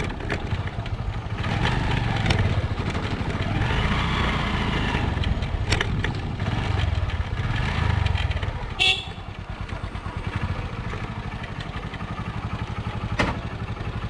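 Motorcycle engine running while riding at night, with road and wind noise. About nine seconds in there is a brief high-pitched sound, after which the engine gets quieter.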